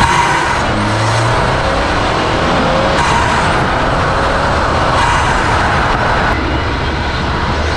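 Turbocharged 2.0-litre four-cylinder engine of a tuned Ford Focus ST Mk3, fitted with an open cone intake filter and a large downpipe, driving along with its note rising and falling a few times. A steady rush of wind and road noise comes through, since the microphone is at the front grille.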